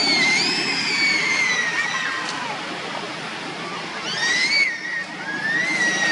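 Baby long-tailed macaque crying: long, high-pitched wailing calls that slide in pitch. There is one long falling call at the start, then two shorter rise-and-fall cries in the second half, over a steady background hiss.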